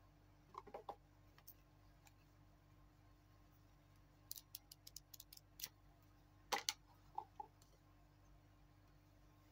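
Faint clicks and taps from handling a cardboard watch box, its paper booklet and the watch on its cushion: a small flurry of light clicks, then one louder knock about six and a half seconds in, followed by a couple of softer taps.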